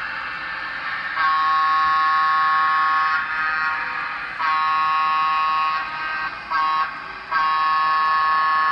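Sound-equipped N scale model diesel locomotive sounding its multi-chime horn through its small onboard speaker: two long blasts, a short one, then a long one, the grade-crossing signal.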